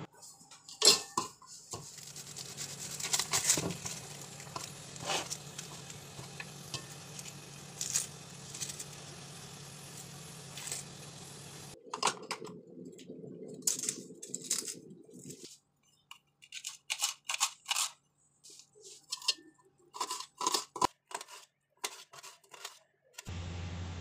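Stainless steel plates and utensils clinking and knocking in irregular clatters as they are handled on a kitchen counter, with a steady low hum under the first half.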